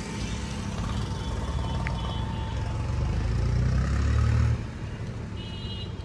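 A motor vehicle passing on the road: a low engine and tyre rumble that grows louder and then falls away suddenly about four and a half seconds in.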